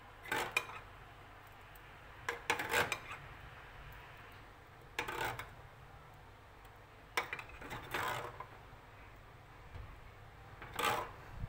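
Spoon clinking and scraping as red pasta sauce is ladled over meatballs in a foil tray: about six short clatters a couple of seconds apart.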